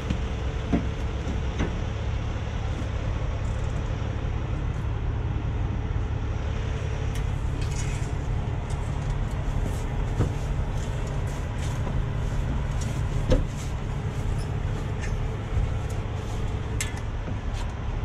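Heavy truck diesel engine running steadily with a low drone, with a few light clicks and knocks over it and a louder knock about thirteen seconds in.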